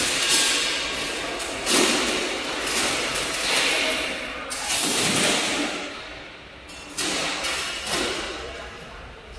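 Automatic screw bagging machine running: a metallic clatter of machine parts and small screws, broken by several sharp thuds spaced a second or more apart.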